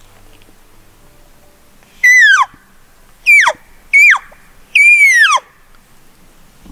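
Four loud cow elk calls, nasal mews that each start high and slide down in pitch. The first comes about two seconds in, the others follow within three and a half seconds, and the last is held longest.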